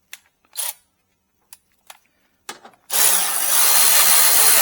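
A few light handling clicks, then about three seconds in a cordless power driver starts up and runs steadily, driving down a headlight mounting screw.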